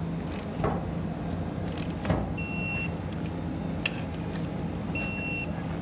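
Steady low workshop hum with a few light metal clicks and knocks from handling an air spring bracket and its bolts, and two short high electronic beeps about two and a half seconds apart.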